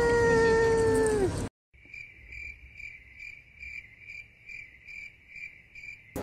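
A steady pitched tone sags in pitch and stops about a second in. After a cut to dead silence, an edited-in crickets sound effect chirps evenly, about two or three high chirps a second, until it is cut off abruptly near the end.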